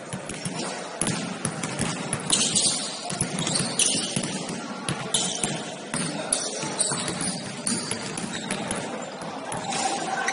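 Basketball game in play: a ball bouncing on the court, with irregular thuds and the scuffle of players' feet.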